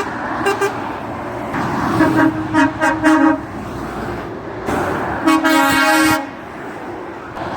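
Truck horns sounding over road traffic noise: two short toots near the start, a quick run of short toots about two to three seconds in, then one longer blast of about a second past the halfway point.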